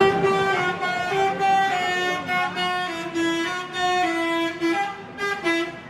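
Telolet basuri musical bus horn playing a quick tune of short held notes that change pitch, stopping shortly before the end.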